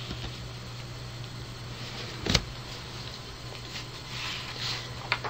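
Steady low electrical hum with background hiss from the recording, and a single sharp click about two seconds in.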